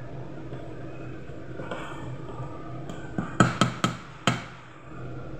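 A wooden spatula knocking sharply against the rim of a pot of cooked rice, about five quick taps in the space of a second, over a steady low hum.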